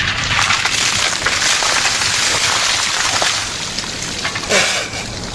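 A bucket of ice water poured over a seated person, splashing and pouring onto his body and the stone path for about three seconds, then easing off.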